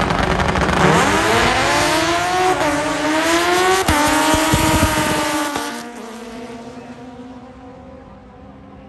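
Honda race car accelerating hard down the drag strip, its engine note climbing steadily, with a sharp snap about four seconds in. The sound falls away quickly about six seconds in as the car pulls into the distance.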